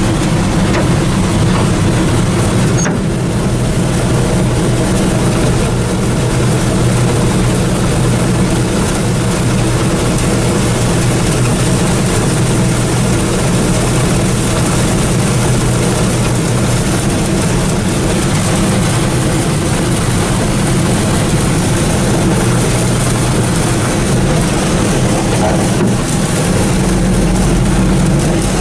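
Allis-Chalmers Gleaner combine's diesel engine and threshing machinery running steadily under load while harvesting shelled corn, with a deeper low note coming in near the end.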